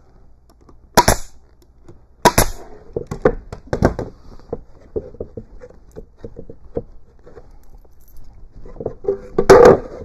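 Pneumatic stapler firing twice, about a second in and again a second later, each shot a sharp crack with a hiss of air as it drives a staple into cypress boards. Then a run of small clicks and light knocks of hands working the wood, with a louder clatter near the end.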